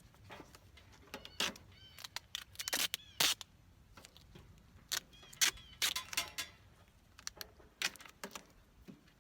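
Scattered clicks, knocks and scrapes of hands setting up a target on a metal grill, with a few short bird chirps in the background.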